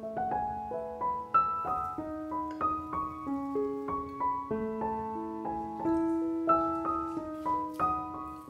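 Background piano music: a gentle melody of struck notes over held lower notes.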